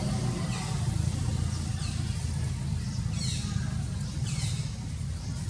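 Baby monkeys giving short, high squeaky calls that fall in pitch, several in a row, over a steady low rumble.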